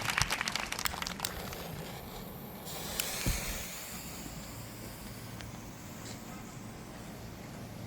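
Crackling, sputtering clicks for about the first second, then a faint steady hiss with one dull thump about three seconds in, consistent with a lit firework fuse burning.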